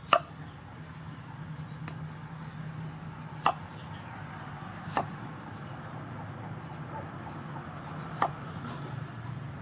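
Cleaver chopping through a peeled potato onto a wooden cutting board: four sharp knocks spread a second or more apart, with a few fainter cuts between them.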